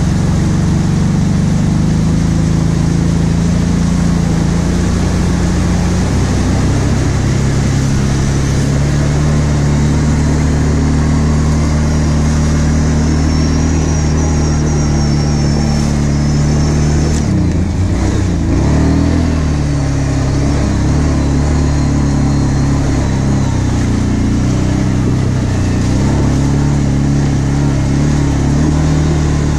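Kawasaki KVF 750 Brute Force quad's V-twin engine running under way on a muddy track. Its pitch steps about a quarter of the way in, then dips briefly and picks up again a little past halfway.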